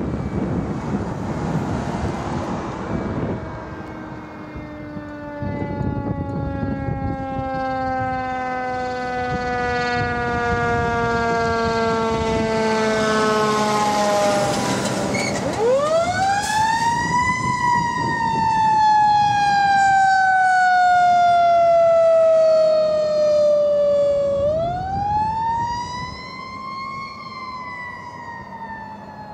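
Fire engine's siren: a long wail falling slowly in pitch, then wound up quickly twice, about halfway and near the end, each time sliding slowly back down. Under it, the truck's engine rumbles, loudest in the middle as the truck passes close, then fading as it moves away.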